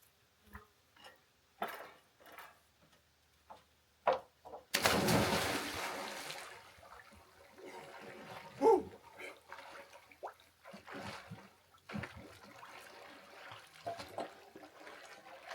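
Scattered small knocks and clicks, then a sudden rush of water about five seconds in that tapers off over a couple of seconds, followed by lighter sloshing and handling clatter.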